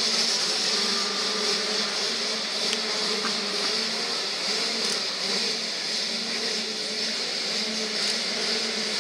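A full start gate of motocross bikes with their engines running together, a steady mass of engine noise with a slightly wavering pitch while the riders wait for the gate to drop.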